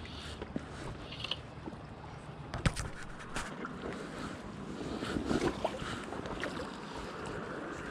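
River water running, with a few sharp clicks and knocks over it, the sharpest about two and a half seconds in.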